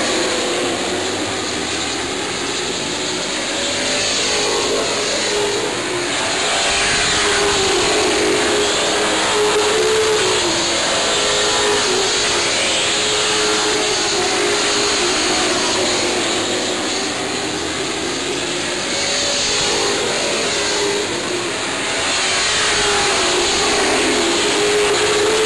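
A pack of Sportsman-division stock cars racing on a short oval, several engines running hard at once, the sound rising and falling as the field comes around.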